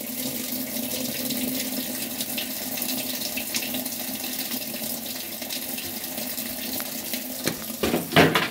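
Water spraying into a vertical modular top-load washer's tub as it fills, a steady hiss over a low hum from the machine. A brief louder knock comes near the end.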